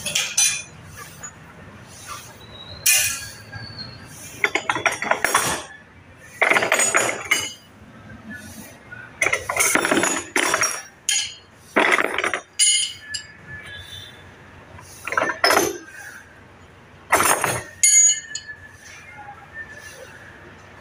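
Metal hand tools and loose engine parts clinking and clattering as they are picked up and set down, in about a dozen short, irregular bursts.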